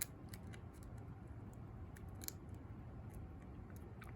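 Faint, scattered metallic clicks and scrapes of a thin short-hook lock pick probing the pins inside a Master Lock No. 1 pin-tumbler padlock, with a low background hum.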